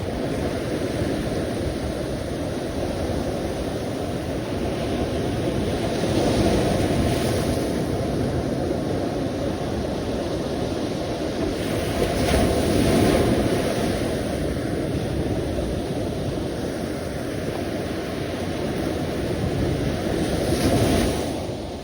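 Sea waves washing in continuously, with louder swells breaking three times, about 6, 12 and 20 seconds in.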